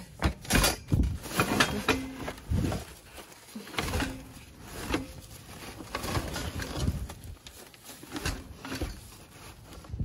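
Rummaging through a dumpster by hand: irregular knocks, clatters and rustling as objects and plastic-wrapped items are shifted about.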